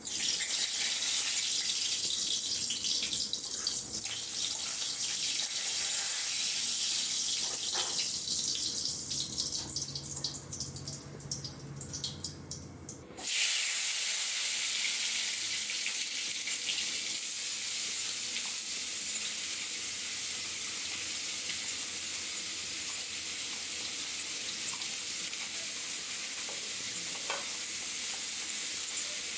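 Food sizzling and crackling in hot oil in a pan, the sizzle gradually thinning out. About 13 seconds in it jumps suddenly to a louder, steady sizzle that holds.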